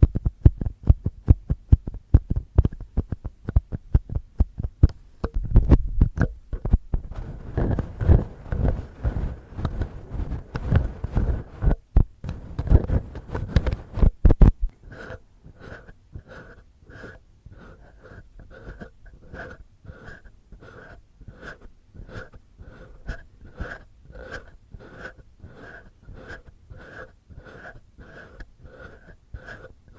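Fingertips and fingernails scratching and rubbing on the microphone as ASMR ear cleaning. About halfway through, the dense, loud scratching changes to softer, even strokes about twice a second.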